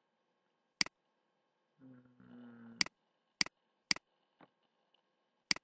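Computer mouse button clicking: five sharp single clicks, half a second to two seconds apart.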